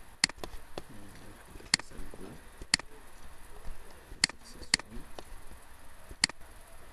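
Computer mouse clicks: six sharp single clicks, spaced about half a second to a second and a half apart.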